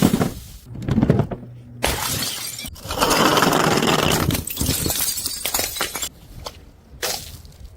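Glass bottles thrown onto stairs, hitting the steps and shattering, with broken glass scattering and clinking. Several sharp impacts are heard, and the biggest, longest shatter comes about three seconds in.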